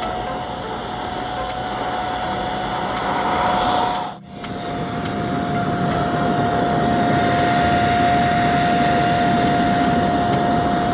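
Black & Decker 3-in-1 stick vacuum running with a steady whine over its motor and airflow noise. The sound briefly cuts out about four seconds in, then comes back and runs on.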